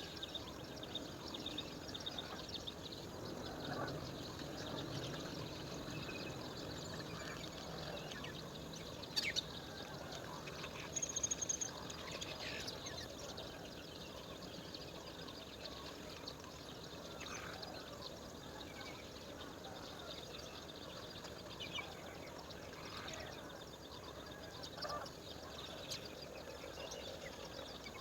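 Outdoor woodland ambience: a steady background hiss with scattered short bird calls and chirps, a few of them sharp and high.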